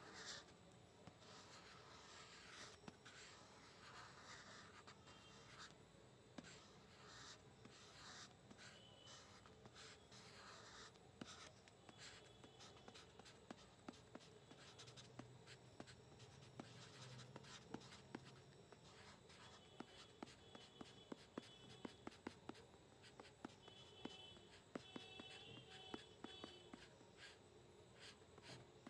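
Graphite pencil scratching faintly on textured paper in many short drawing strokes.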